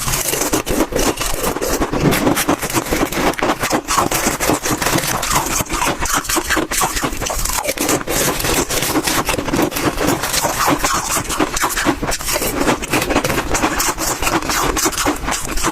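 Freezer frost crunching and squeaking as it is chewed in big bites close to the microphone, a steady dense crackle.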